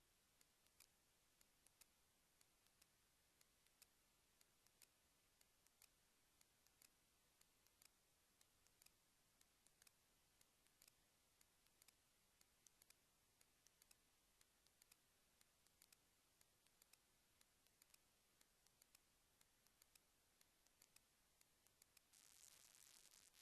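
Near silence with faint, irregular clicks scattered throughout and a brief hiss near the end.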